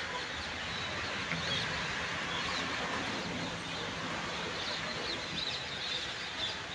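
Birds chirping in short, high calls over a steady background hiss of highway traffic.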